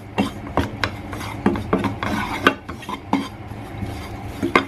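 A cooking utensil stirring and scraping in a frying pan, with irregular clinks against the pan, as flour is stirred into browned mushrooms to start a gravy.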